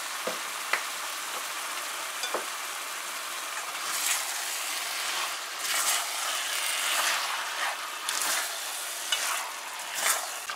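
Goat meat and curry paste sizzling in oil in a hot metal karahi, stirred and turned with a plastic spatula. The sizzle is steady, with louder scraping strokes from about four seconds in.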